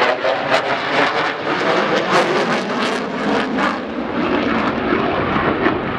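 Eurofighter Typhoon's twin EJ200 turbofans at full power with afterburners lit: loud, steady jet noise broken by repeated short crackles.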